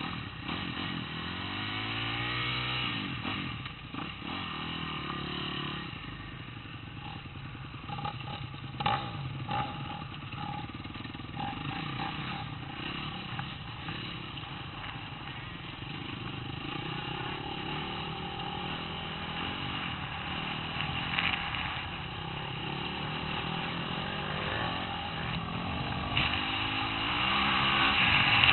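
Motocross dirt bike engines running and revving, rising in pitch in the first few seconds, then running steadily, louder near the end as the bikes ride along the track.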